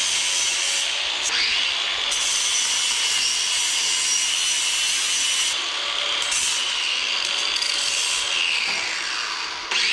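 Ryobi cordless angle grinder running with a sanding wheel against welded steel horseshoes, knocking off slag and the spatter left by AC welding. Its motor whine stays steady, dips under load about a second in, and sags near the end before picking back up.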